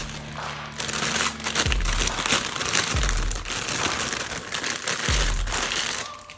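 Toy packaging crinkling and rustling as it is handled and opened, over background music with a deep, repeating bass beat.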